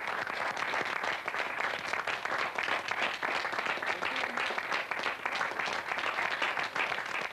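Studio audience applauding, a dense spread of hand claps that fades out at the end.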